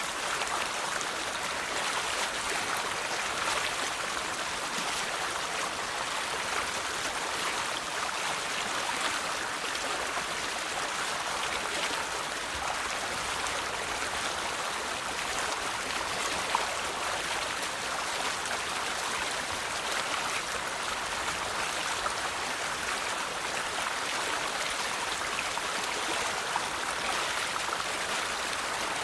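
River water flowing steadily over stones: a continuous rushing babble with small splashes and gurgles.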